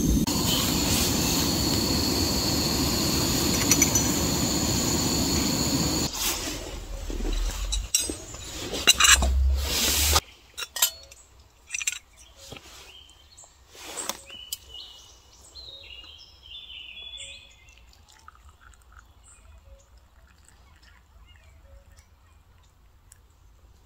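Portable gas canister stove burning under a metal pot of coffee: a steady hiss with a low rumble. It turns uneven about six seconds in and cuts off suddenly about ten seconds in. After that come a few metal clinks and birds chirping.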